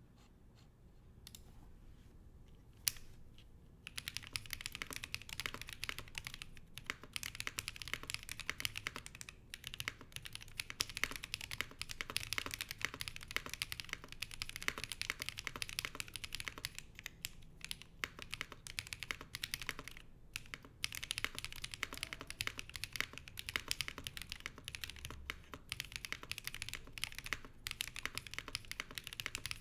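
Fast typing on a Nuxros RE65 mechanical keyboard with lubed and filmed KTT Strawberry linear switches on an aluminium plate and Hammerworks CRP keycaps: a quick, steady stream of keystroke clicks with a few short pauses. The opening seconds hold only one single click before the typing starts about four seconds in.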